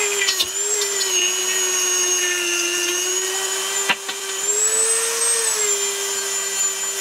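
Dremel rotary tool with a small wheel spinning at high speed, a steady high whine as it grinds rust off an outboard's rocker cover. The pitch dips briefly about four seconds in and rises a little just after.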